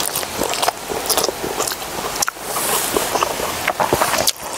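A person chewing and crunching food close to the microphone, with many short, crisp crackles.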